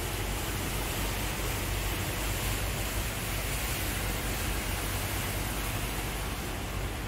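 Steady rushing hiss of heavy rain and floodwater.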